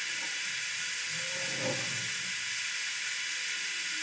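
TIG welding arc burning steadily as a weld is laid on the block, a constant hiss.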